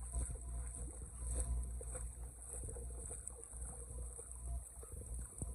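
Shallow muddy flood water sloshing and splashing in irregular bursts as someone wades through it, over a steady low rumble.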